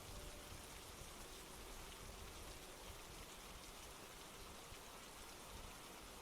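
Faint, steady rainfall: an even hiss with scattered light drop ticks.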